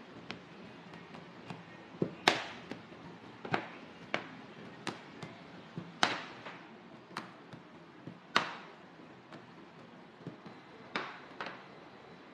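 Wooden rolling pins and hands knocking on a stainless steel worktable while pastry dough is rolled: about ten sharp knocks at irregular intervals, each with a short metallic ring, the loudest about two, six and eight seconds in.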